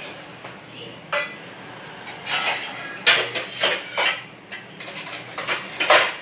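Kitchen utensils and a frying pan being handled, with a string of metal clinks and clatters about a second apart, the loudest near the end.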